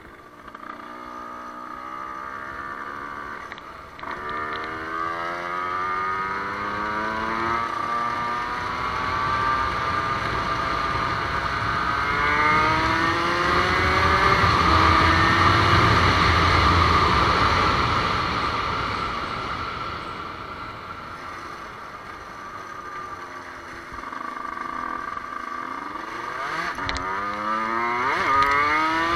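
Motorcycle engine heard from on the bike while riding. Its pitch climbs again and again with a drop between each climb, as it accelerates up through the gears. Wind and road noise build to their loudest about halfway through. Near the end the engine drops back and then climbs again.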